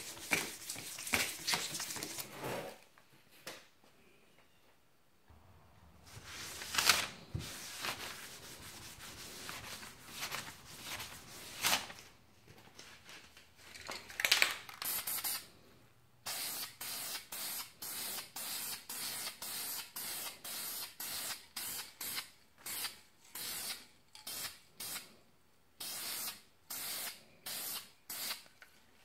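Hand rubbing of fine 400-grit sandpaper over primer. It is followed, about halfway in, by an aerosol can of Duplicolor primer sealer, fired through a trigger grip in a quick run of short hisses as a light coat is laid on.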